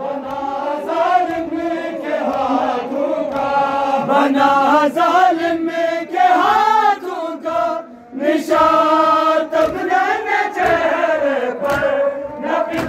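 A group of men chanting a noha, a Shia mourning lament, in unison, with long held notes that rise and fall in pitch.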